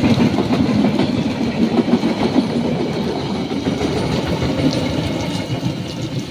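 Diesel train running on the rails, a heavy engine rumble with wheel clatter that slowly fades.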